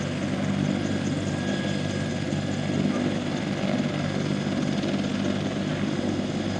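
Helicopter running on the ground, its turbine and rotor giving a steady, even hum.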